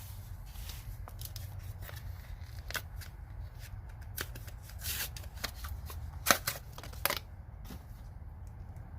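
Small steel tweezer pliers being handled: scattered light clicks and short rustles, with sharper clicks about six seconds in and again about a second later.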